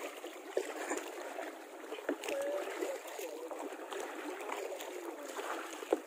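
Kayak paddling on calm water: a steady wash of water along the hull, with a few short splashes and knocks from paddle strokes.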